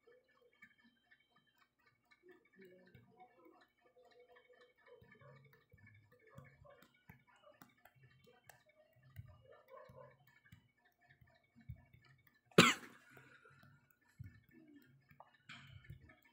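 Faint scattered ticks and small knocks, with one sharp, loud click about twelve and a half seconds in and a smaller click near the end.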